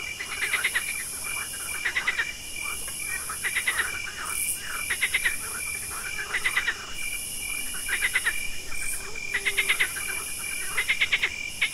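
Night frog chorus: short bursts of rapid clicking calls repeating every second or so, over a steady high trill of crickets and other night insects.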